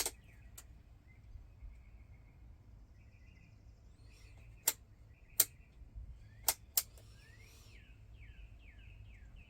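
Several sharp single clicks from a multimeter's rotary selector dial being set, with faint bird chirps and trills in the background, including a run of short falling chirps near the end.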